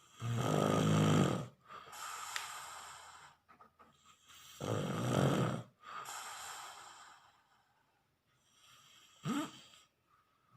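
Loud snoring: two rattling snores about four seconds apart, each followed by a quieter breathy breath. A brief sound rising in pitch comes near the end.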